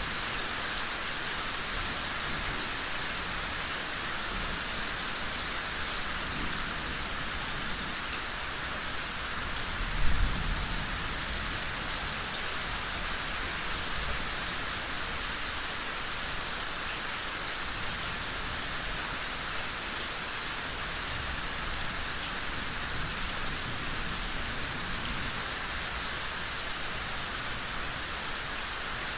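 Heavy rain falling steadily during a thunderstorm, a constant hiss of drops on surfaces. About ten seconds in there is one brief low rumble.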